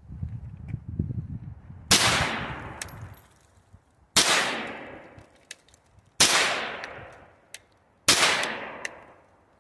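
Four single shots from a sub-gun (pistol-caliber carbine), spaced about two seconds apart, each ringing out for about a second. A faint sharp tick follows each shot. Low shuffling comes before the first shot.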